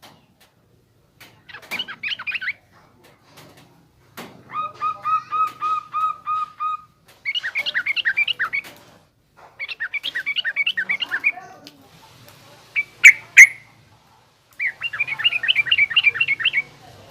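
Yellow-vented bulbul (trucukan) singing its rough, chattering ngriwik song in separate phrases. Most phrases are quick bubbly warbles. One, a few seconds in, is a run of about eight evenly repeated lower notes, and two loud, sharp notes come about two-thirds of the way through.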